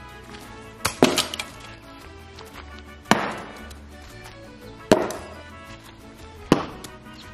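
Thrown hatchet and throwing knives striking a wooden target: four sharp knocks, roughly two seconds apart, over background music.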